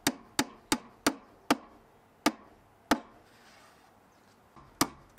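Hammer tapping pin nails into a 3mm plywood back panel: a run of sharp taps about three a second that spaces out, a pause of about two seconds, then two more taps near the end.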